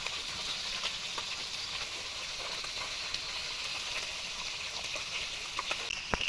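Food frying in hot oil: a steady sizzle with small scattered crackles.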